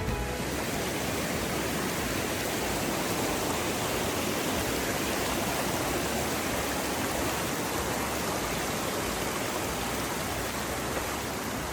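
Steady, even rush of fast-flowing water from a mountain creek or cascade.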